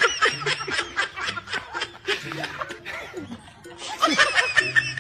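A man laughing in rapid repeated bursts. The laughter dies down around the middle and breaks out again about four seconds in.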